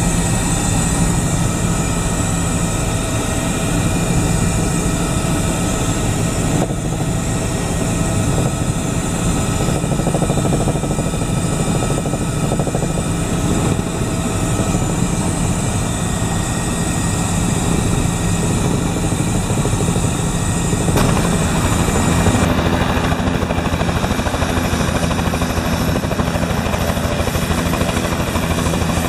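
Helicopter running steadily, with a fast low beat from the rotor blades under a steady high whine. About two-thirds of the way through the sound changes and much of the high whine drops away.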